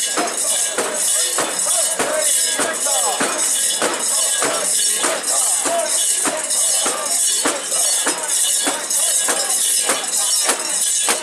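Mikoshi procession: a rhythmic metallic jangling, about three strokes a second, as the portable shrine is shaken along, under many voices chanting together.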